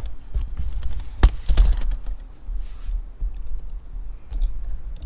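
A few light clicks and taps, the sharpest about a second in, followed by scattered fainter ticks, over a steady low rumble.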